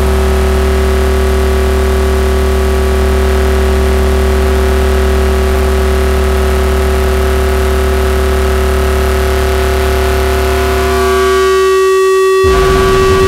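Electronic noise music: a loud, steady drone of many held tones over a heavy low hum. Near the end the low hum fades out and a rougher low rumble with a new higher tone cuts in abruptly.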